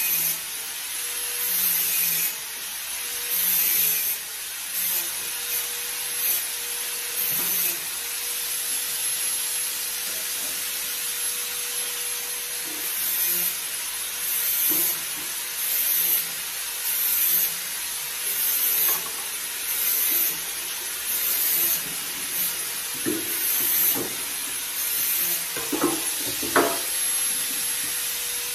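Dishes being scrubbed by hand in a stainless steel sink, rubbing strokes coming about once a second. A few crockery clinks near the end.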